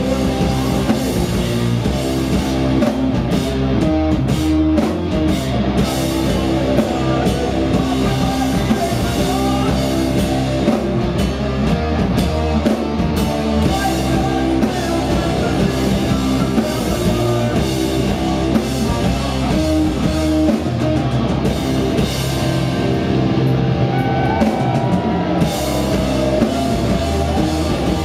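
A heavy metal band playing live: electric guitars, bass guitar and a drum kit with cymbals, loud and continuous.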